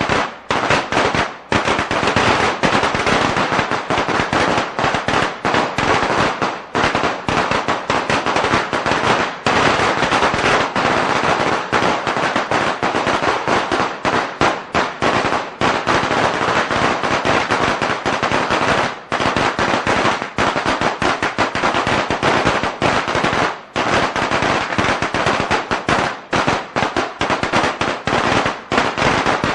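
A string of Chinese firecrackers (bianpao) going off in a dense, unbroken rattle of rapid bangs, with a few short lulls.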